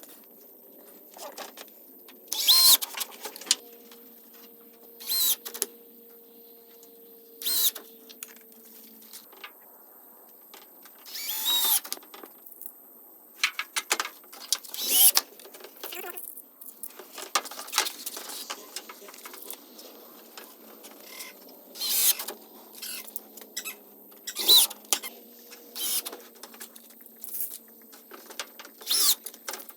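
Irregular short clatters and scrapes from hand construction work on wood and sheet metal, one every second or few, some with a brief squeal.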